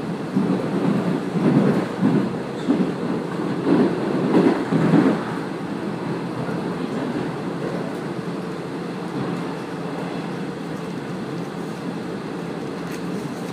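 On-board running noise of a Kiha 48 diesel railcar ('Kazekko' joyful train). A cluster of wheel knocks over rail joints comes in the first five seconds, then it settles into a steady rumble.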